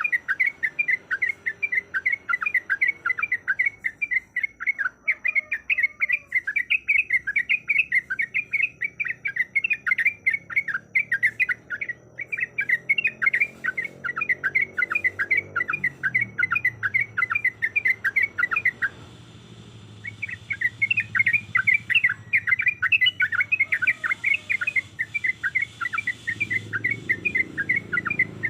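Sooty-headed bulbul (trucuk) singing a long, rapid rolling run of short chirping notes, many per second. It breaks off for about a second about two-thirds of the way through, then starts up again. A low rumble sits under it in the second half.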